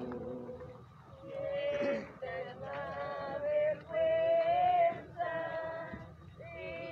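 A group of people singing a religious hymn together as they walk in procession, in short phrases with brief pauses between them.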